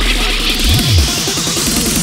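Goa trance electronic music: a held deep bass note fades out about half a second in, and a single kick drum lands near the middle. Under a fast rippling synth pattern, a hiss rises steadily in pitch, a build-up with the usual regular kick beat paused.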